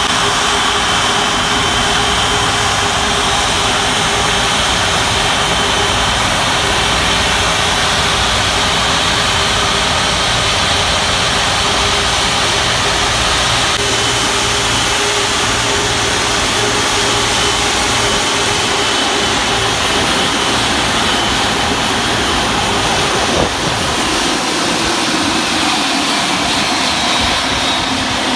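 Airbus A330-343's Rolls-Royce Trent 700 turbofans running at taxi power: a loud, steady rush with a high whine. Over the last few seconds the whine slides down in pitch.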